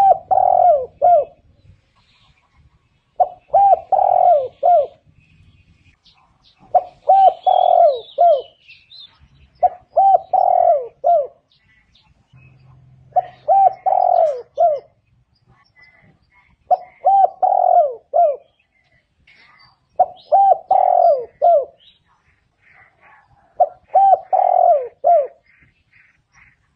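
Spotted dove singing its cooing song, a short phrase of several falling coos repeated eight times, about every three and a half seconds. Faint chirps from other small birds come between the phrases.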